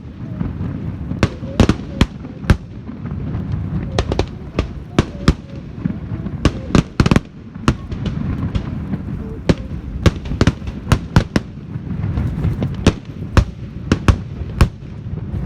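Aerial fireworks going off: many sharp bangs in quick, irregular succession over a continuous low rumble.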